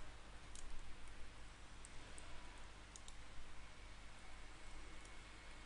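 A few faint computer mouse clicks, a second or so apart, over a steady low hiss.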